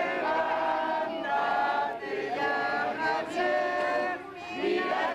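A group of people singing together in unison, in long held notes with short breaks between phrases.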